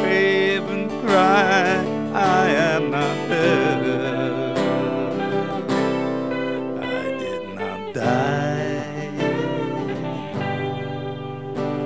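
Two acoustic guitars playing a slow accompaniment, with a singing voice holding long notes with vibrato over them.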